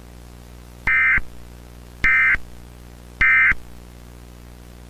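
Emergency Alert System end-of-message signal: three short bursts of SAME data tones about a second apart, the buzzy digital warble that marks the end of the alert.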